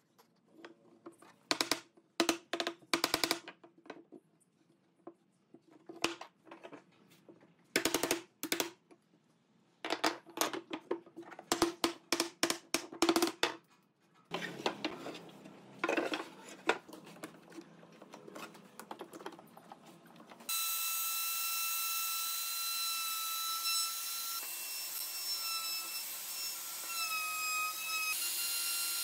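Woodworking shop sounds: quick, irregular clusters of taps and knocks on wood for the first half, then rougher scraping strokes. About two-thirds in, an electric power tool starts and runs steadily with a high whine.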